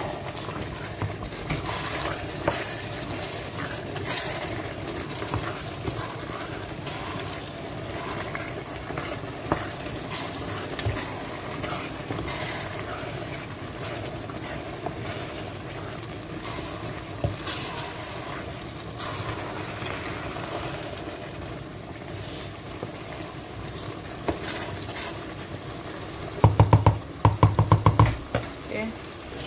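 A wooden spatula stirring spinach stew in a stainless steel pot, the stew sizzling steadily on the hob while the spatula knocks and scrapes on the pot now and then. Near the end comes a short run of loud rapid knocks.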